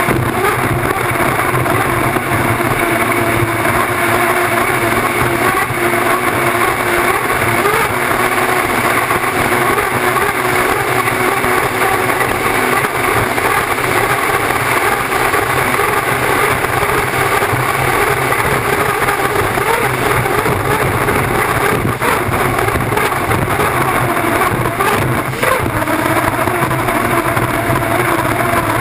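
Onboard sound of an unlimited hydroplane at racing speed: its turbine engine running steadily under the rush of wind and spray from the hull.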